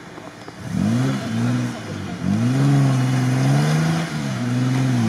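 Off-road SUV's engine revving hard under load as it climbs a snowy bank, in three surges that each rise sharply in pitch and are then held.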